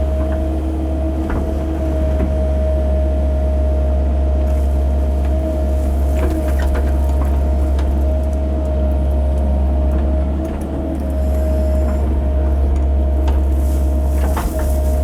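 CAT 308 mini excavator's diesel engine running steadily under digging load, with a steady high whine over the low drone and scattered knocks and scrapes from the bucket working the dirt.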